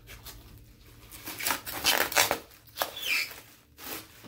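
Clear plastic wrapping crinkling and rustling in several bursts as wrapped paintings are pulled and shifted in a box, loudest about two seconds in.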